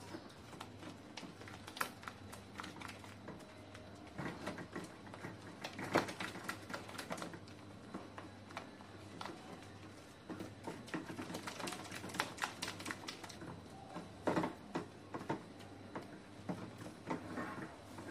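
Silicone spatula stirring a thick, thickening milk-powder mawa mixture in a non-stick pan: irregular scraping and ticking against the pan, in denser spells about a third of the way in and through the second half.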